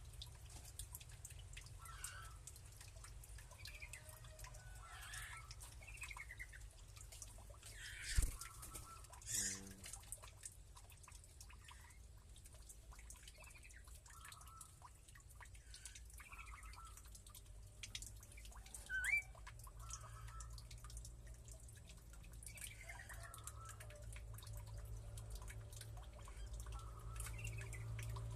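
Aviary birds chirping faintly in short scattered calls, with a couple of louder, harsher calls about 9 and 19 seconds in, over a steady low hum.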